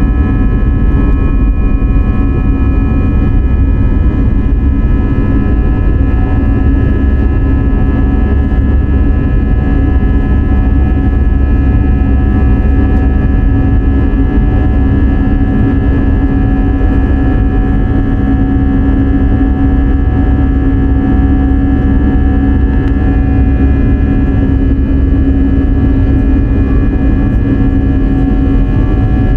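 Cabin noise of an Airbus A320-214 climbing after takeoff: its CFM56-5B engines and the airflow give a loud, steady rush with several steady tones held over it.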